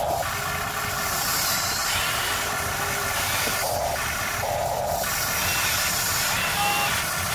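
Electric motors of a Huina radio-controlled excavator whining in short spurts (three of them, two close together midway) as the arm and bucket move, over a steady hiss.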